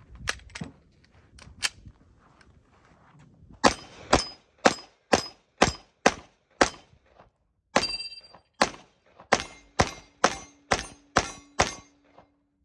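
FN FNX-45 Tactical .45 ACP pistol firing a full magazine of 230-grain rounds in steady rapid fire, about two shots a second with one short pause midway, cycling every round without a jam. A few quieter clicks come in the first two seconds, and a steady low tone runs under the last several shots.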